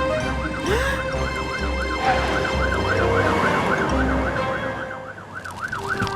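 Cartoon fire-truck siren wailing rapidly up and down, about three times a second, with low engine rumbles pulsing underneath from the racing trucks.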